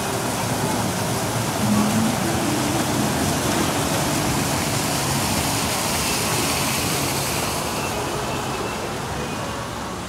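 Water pouring over a small rock waterfall fountain and splashing into its basin, a steady rush that fades somewhat in the last couple of seconds.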